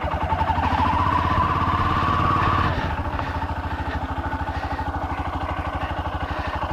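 Royal Enfield Himalayan's single-cylinder engine running with a regular exhaust beat. The revs climb over the first couple of seconds, then drop back and hold steady.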